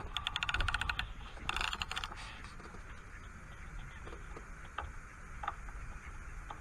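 Hardy Altex No. 2 Mk V fixed-spool reel clicking rapidly as its handle turns, in two quick bursts within the first two seconds, followed by a few single ticks.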